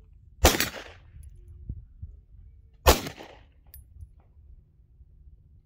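Two pistol shots about two and a half seconds apart, each loud and sharp with a short echoing tail.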